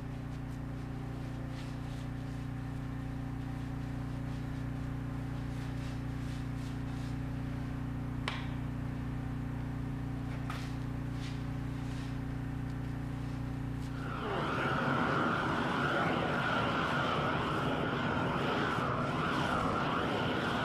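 A steady low hum with several held tones, which about two-thirds of the way through gives way to the steady hiss of a gas flame torch. The torch is heating bitumen tape as it is wrapped onto a steel pipe.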